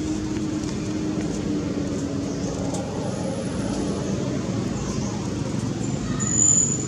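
Steady low rumble of motor traffic, with a brief high-pitched squeak near the end.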